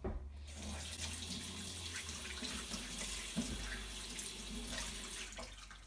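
Kitchen tap running into a stainless-steel sink, water splashing over a cuttlefish held under it for rinsing. The water starts suddenly and is shut off near the end.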